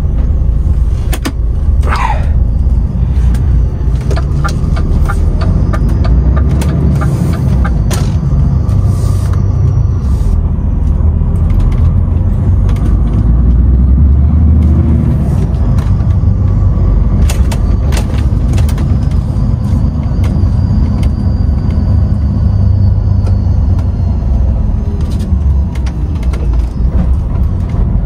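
DAF XF 510 truck heard from the cab, its diesel engine running under a steady low rumble, with scattered clicks and a short falling squeal about two seconds in.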